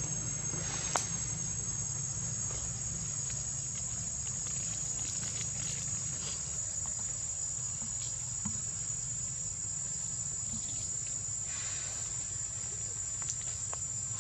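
Steady high-pitched drone of insects, growing louder about halfway through, over a low steady hum.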